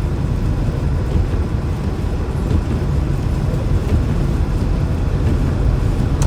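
Steady low rumble of a car driving on a snow-covered highway: tyre and engine noise heard from inside the cabin.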